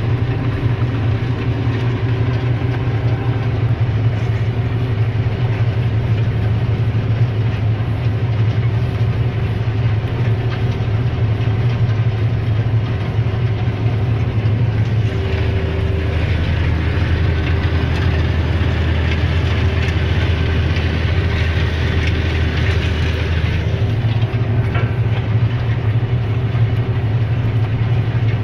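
Deutz 180.7 tractor running steadily under load while mulching, heard from inside the cab as a loud, deep drone. From about fifteen seconds in, the drone drops lower and a higher rushing noise swells for roughly eight seconds, then the earlier sound returns.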